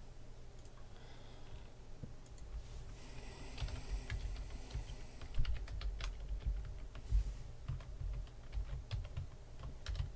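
Typing on a computer keyboard: quick, irregular key clicks, sparse at first and steady from about three and a half seconds in.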